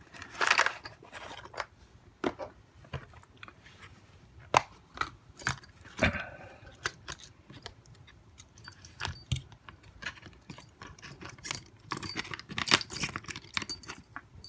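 Small metal lock-pick tools and parts clinking and rattling as they are taken out and handled, with many sharp clicks and a short rustle about half a second in and again around six seconds. In the second half some of the clinks leave a thin metallic ring.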